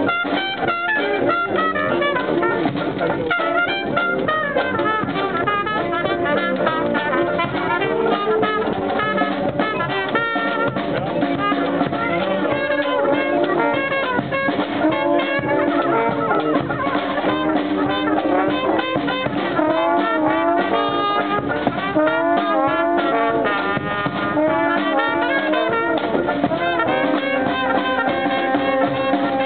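Live Dixieland street band playing jazz: sousaphone, trumpet, banjo and bass drum together with a steady beat.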